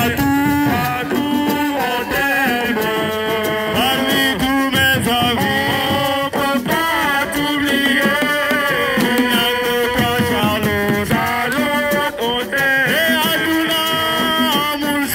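Music: a voice singing a melody with held, wavering notes over steady hand-drum percussion.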